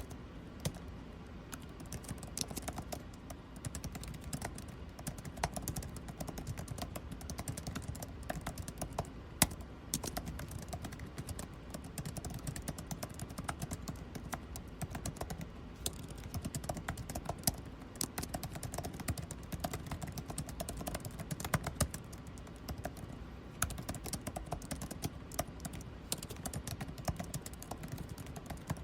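Typing on a computer keyboard: rapid, irregular key clicks with short pauses, over a steady low air-conditioning hum.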